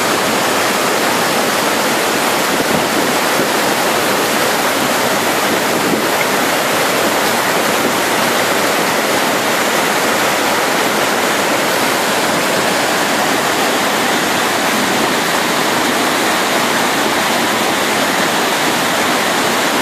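Groundwater spring in flood after heavy rainfall, its water gushing from a stone outlet and churning down a stone spillway as white water: a loud, steady rushing of water.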